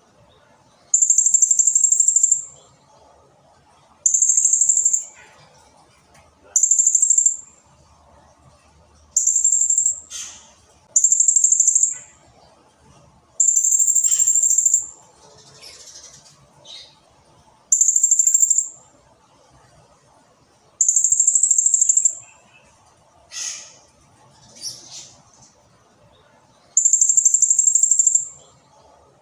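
Blue-crowned hanging parrot (serindit) in full song, giving a string of loud, very high-pitched shrill calls. Each call lasts a second or so and they repeat every two to three seconds. A few short calls falling in pitch come between them.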